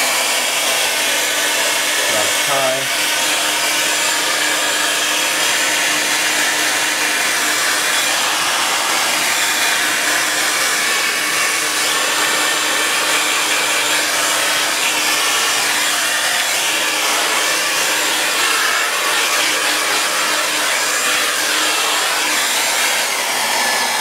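MHD handheld hair dryer running: a steady rush of blown air with a motor hum underneath.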